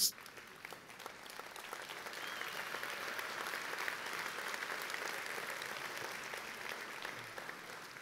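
Large audience applauding, swelling over the first few seconds and tapering off near the end, after a sharp click at the very start.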